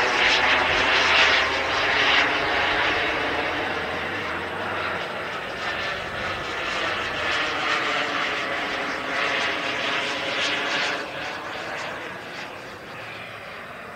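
Turbine engine of a radio-controlled model jet flying past overhead: a steady rushing whine. It swells in the first couple of seconds and again about ten seconds in, then fades as the jet draws away.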